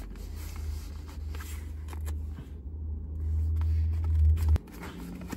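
A low rumble that builds and then cuts off suddenly with a click about four and a half seconds in, over faint clicks and rustles of cardboard being handled as a trade-in box is pressed shut and sealed with its tape strip.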